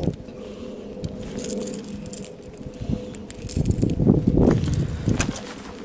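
Small metallic clicks and rattles as a minnow lure is handled and clipped onto the line's snap by hand, with a busier stretch of rustling and knocks late on. A faint steady hum sits underneath.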